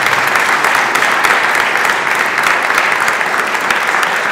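Audience of a roomful of people applauding: dense, steady clapping.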